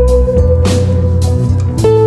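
Instrumental background music with guitar: a held melody note that steps down near the end, over a beat that lands about once a second.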